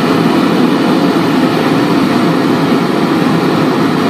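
Homemade 3/4-inch Michael Porter-design forge burner running with a loud, steady roar of burning gas.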